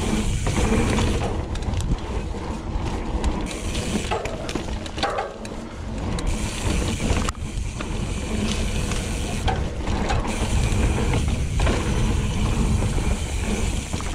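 Hope Pro 4 rear hub's freehub buzzing loudly as a steel hardtail mountain bike coasts along a dirt trail, over steady rolling trail noise. The buzz breaks off briefly several times.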